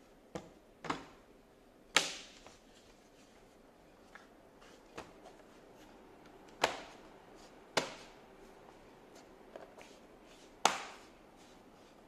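Plastic bottom cover of an Acer Aspire 3 laptop pressed shut, its clips snapping into place one at a time: about half a dozen sharp clicks at irregular intervals, with the loudest about two seconds in and near the end.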